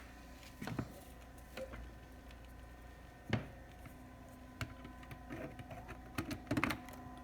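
Scattered light clicks and knocks as a laptop charger cable is handled, its connector attached to the MacBook and its plug pushed in, over a faint steady hum.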